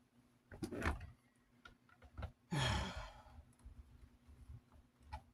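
A man's heavy sigh about two and a half seconds in: a breathy exhale with a falling voiced tone. Small handling clicks and taps before it.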